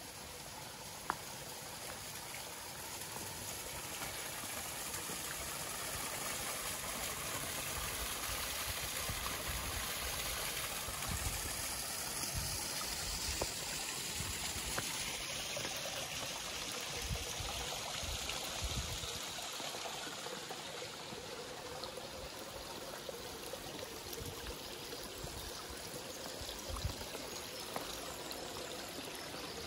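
Shallow stream trickling over and around flat stepping stones, a steady water sound that swells a little in the middle, with a few short low thumps.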